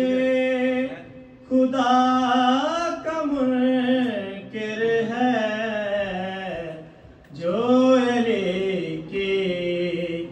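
A man chanting a devotional recitation solo, in long, drawn-out melodic phrases. There are short pauses for breath about a second and a half in and again about seven seconds in.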